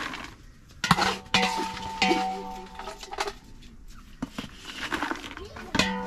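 Spatula scraping and knocking against a metal bowl and an aluminium cooking pot while dried dagaa fish are scooped across. There are four sharp clinks, each leaving a brief metallic ring.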